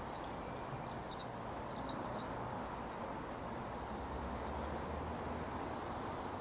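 Steady city street ambience: a constant hum of distant road traffic, with a few faint light clicks a second or two in.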